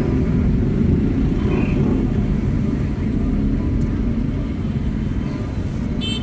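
Steady low rumble of dense street traffic, with a brief high tone near the end.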